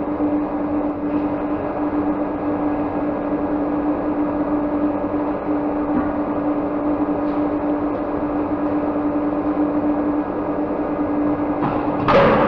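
Steady machine hum holding one constant tone over a bed of noise, with a brief louder burst of noise near the end.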